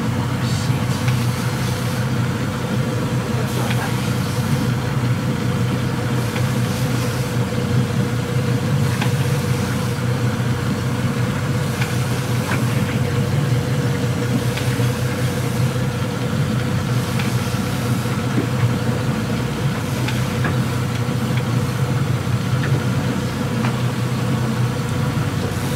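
Boat engine running steadily at low revs: an even, unbroken hum with a constant higher tone over it.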